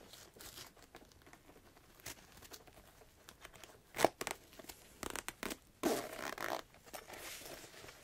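Zipper on a Hohner melodica's soft fabric carrying case being worked open in short pulls, with small clicks and rustles of the case being handled. There is a sharp click about four seconds in.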